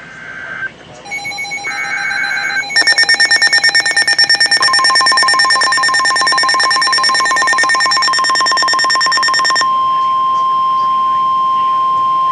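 NOAA Weather Radio emergency alert: short buzzy digital data bursts, then the steady 1050 Hz weather alert tone, which starts about four and a half seconds in and holds to the end. For most of that time it is overlaid with a rapid pulsing electronic alarm beep, which stops about two and a half seconds before the end.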